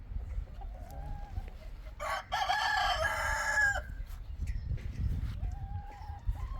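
A rooster crowing once, a loud call of about two seconds starting a couple of seconds in, with softer clucking calls from chickens before and after it.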